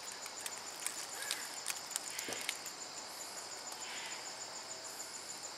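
Quiet outdoor background with a steady, high, fast-pulsing insect chirp, and a few faint scattered ticks.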